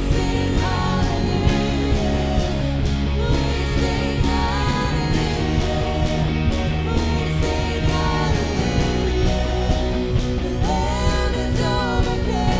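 A live worship band plays a slow song: electric guitar, keyboard and drums with a steady cymbal beat, and a woman's voice sings over them.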